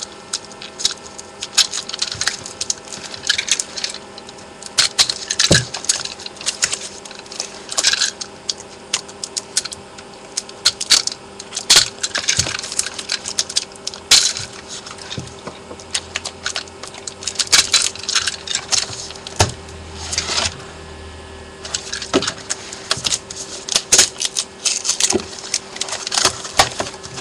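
Heavy packaging tape being picked at and peeled off cardboard packaging: irregular crackles, scrapes and rustles, over a faint steady hum.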